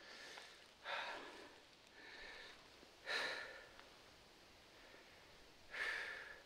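A hiker's heavy breathing, loud exhales about every two and a half seconds, three of them standing out: out of breath from climbing.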